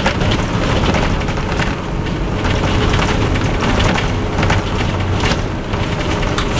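Onboard sound of a Leyland Olympian double-decker bus under way, its Cummins LT10 inline-six diesel engine running with a steady low hum under road noise. The bodywork rattles and clicks throughout.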